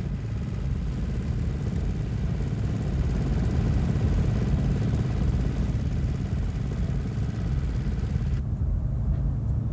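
A steady low mechanical rumble, like an engine running, with no distinct strokes or pitch changes. The fainter high hiss above it cuts off abruptly near the end.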